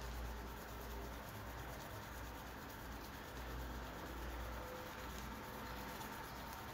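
Steady scratchy rubbing of a white nail-buffer block worked back and forth over the black plastic grip of a G1 Megatron toy, smoothing scratches out of its surface.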